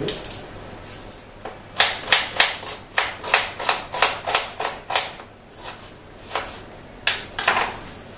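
Knife chopping on a cutting board: a run of quick, sharp strokes about three a second, then a short pause and a few more strokes near the end.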